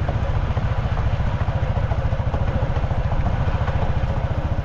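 Motorcycle engine running steadily with a rapid, even low throb.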